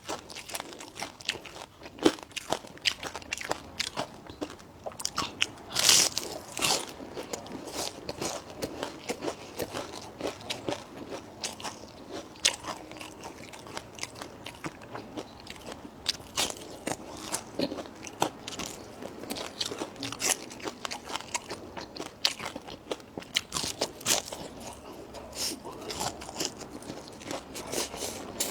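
A person chewing and crunching food close to the microphone: a steady run of short, sharp crunches and mouth clicks, with a louder crunch about six seconds in.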